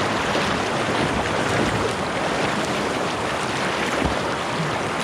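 Steady rush of whitewater from a river rapid, an even noise that does not let up.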